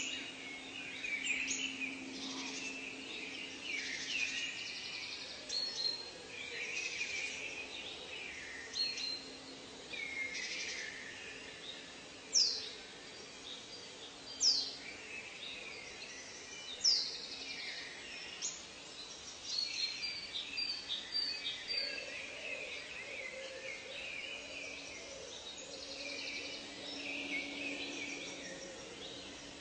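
A chorus of many wild birds calling and singing over one another, with three loud, sharp whistles that fall steeply in pitch near the middle. A faint low hum comes and goes underneath.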